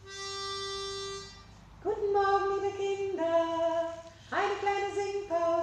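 A round pitch pipe blown for one steady note lasting just over a second. Then a woman sings short phrases that move back and forth between a higher and a lower note.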